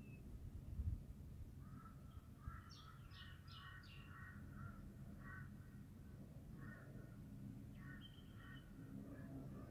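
Faint birds calling: runs of short repeated chattering notes, with a brief cluster of higher, sharper notes about three seconds in. A brief low bump about a second in.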